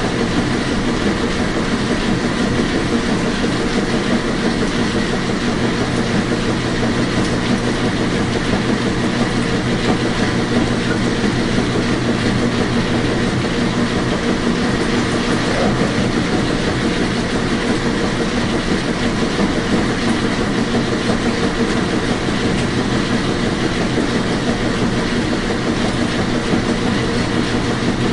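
Washing machine running: a steady, unchanging whir and rumble with a low motor hum underneath.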